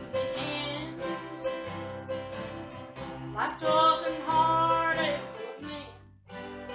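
Live acoustic guitar strummed as accompaniment to singing, in a country-gospel style, with a brief break between phrases near the end.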